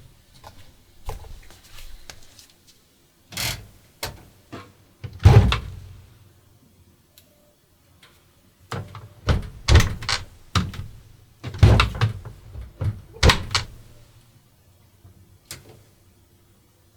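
Washing machine being handled: irregular thunks and clicks, like its door and controls being worked, in two clusters with the loudest thunk about five seconds in.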